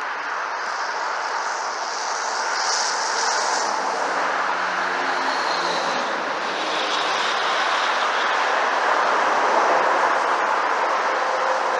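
Traffic passing on a highway: a steady wash of tyre and diesel engine noise from trucks, getting a little louder toward the end.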